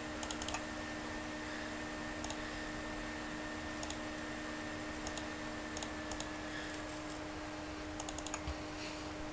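Sharp clicks from computer mouse and keyboard use, about seven times, each a quick cluster of two to four clicks, over a steady low hum.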